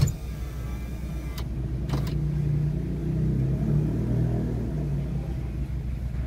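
Car engine running and low road rumble heard from inside a slowly moving car with the side window open. A short knock comes right at the start.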